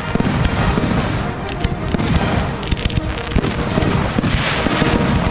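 Aerial fireworks shells bursting in repeated bangs, with music playing along.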